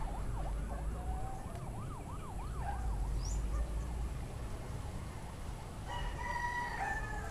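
A rooster crows about six seconds in, one drawn-out call that falls slightly at the end. Before it, a distant siren warbles rapidly for the first few seconds. A steady low rumble runs underneath.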